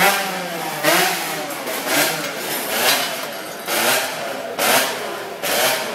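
Racing motorcycle engine being revved in short throttle blips, about one a second, the pitch rising and falling with each blip.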